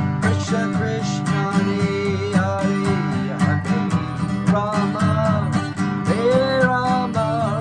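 Music: an acoustic guitar strummed in a steady rhythm, with a gliding melody line above it that rises and falls in phrases.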